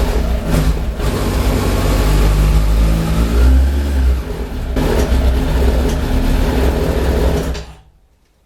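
A 2006 Suzuki GSF1200 Bandit's engine runs unevenly for several seconds, spitting back into the carburettor, with brief breaks, then cuts out near the end. The owner suspects that fuel isn't getting through from the tank, after valve clearances he may have set too small.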